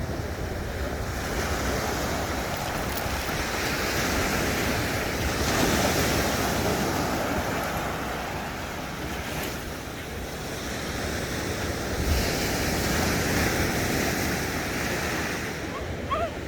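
Ocean surf breaking and washing up a sandy beach, with wind buffeting the microphone; the wash swells and eases twice.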